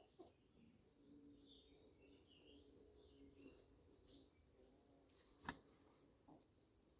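Near silence with faint bird chirps, mostly in the first half, and a single sharp click about five and a half seconds in.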